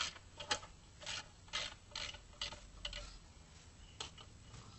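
Socket ratchet clicking in short back-and-forth strokes, about two a second, on clutch pressure plate bolts; the strokes stop about three seconds in, with one last one near four seconds.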